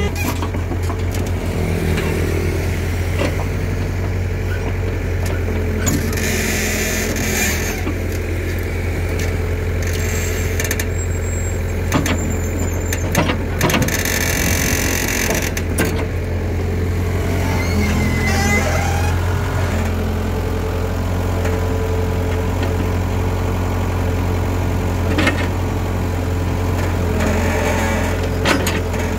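Engines of a Hitachi hydraulic excavator and a three-wheeled công nông truck running steadily while the excavator loads sand. Twice there is a loud rushing whoosh as a bucketload of sand and earth pours into the truck's bed.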